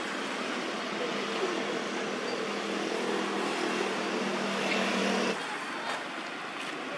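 A motor engine running steadily over a constant hiss, cutting off abruptly about five seconds in.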